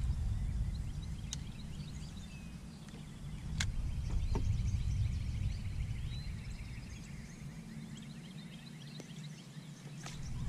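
Wind rumbling on the microphone, rising and falling, with faint birdsong in the middle and a few sharp clicks from the rod and reel being handled.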